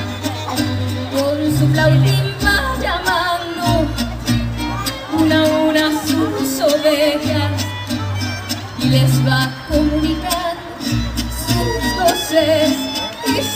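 Live mariachi band playing a ranchera, with violins and trumpets over a pattern of deep alternating bass notes, and a woman singing in front through the PA.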